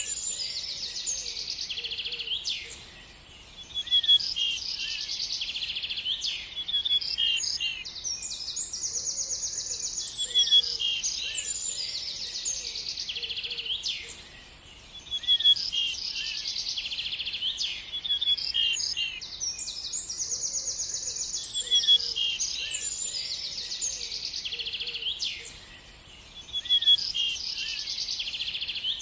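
A chorus of many songbirds chirping and trilling at once, with high, rapid calls overlapping. A short lull comes about every eleven seconds, and the same stretch of calls repeats like a loop.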